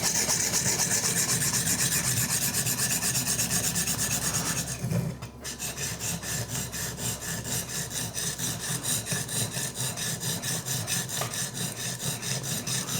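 Coarse 100-grit sharpening stone on a guided-system arm scraping rapidly back and forth along an oiled knife edge, about five strokes a second. There is a brief pause about five seconds in, then the strokes resume.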